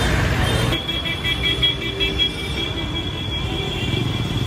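Busy road traffic with a vehicle horn sounding in long, steady honks from about a second in, over the low rumble of engines.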